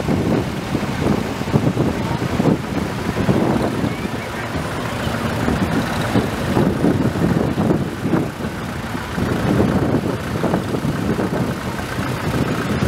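Engines of several antique Farmall tractors running as the tractors drive slowly past one after another, a steady rapid pulsing.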